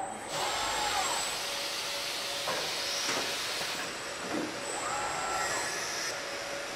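Car-body assembly line with KUKA industrial robot arms at work: a steady hiss of compressed air, with robot servo motors whining up and then down in pitch twice, and a couple of sharp mechanical clicks about halfway through.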